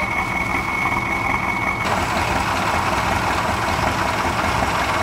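Truck engine idling steadily, with a thin high whine that stops about two seconds in.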